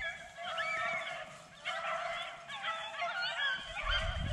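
Pack of beagles baying as they run a rabbit's trail, several dogs' voices overlapping in repeated bouts. A low rumble on the microphone starts near the end.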